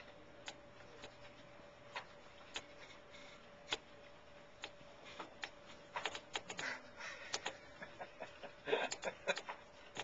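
A goldfinch tapping its beak against window glass, pecking at its own reflection. The taps come singly every second or so at first, then in quicker clusters in the second half.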